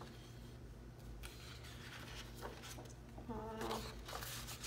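Soft rustles of paper planner pages and tabs being handled, over a steady low electrical hum, with a brief murmured voice sound about three seconds in.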